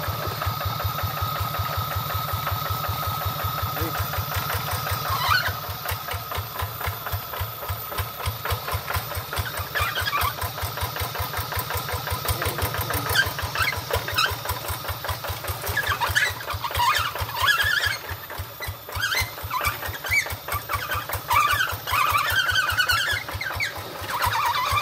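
Two-wheel hand tractor's single-cylinder diesel engine running with a fast, even chugging as the cage-wheeled tractor is worked through mud. Short high squeaks come and go from about five seconds in.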